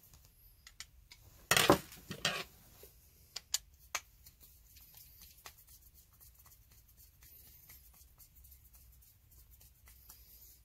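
A screwdriver and small metal parts clinking on a workbench: a brief clatter about two seconds in, then scattered light clicks and ticks as the screwdriver works at the ratchet's gearbox housing.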